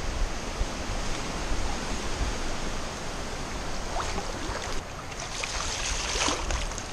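Steady rush of shallow creek water running around a kayak as it drifts downstream, with brighter splashing in the second half.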